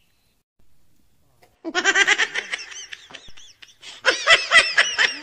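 High-pitched human laughter, a quick run of 'ha-ha-ha' about two seconds in, a short pause, then a longer run near the end.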